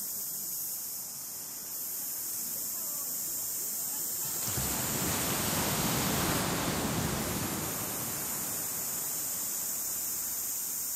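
Beach ambience: a steady high hiss, with a swell of rushing noise that builds about four seconds in and dies away a few seconds later.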